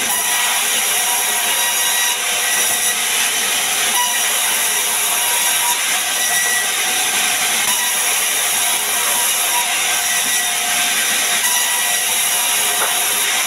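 Large band sawmill running, its blade ripping lengthwise through a timber plank fed in by hand: a steady, loud, high hiss with short faint whining tones that come and go.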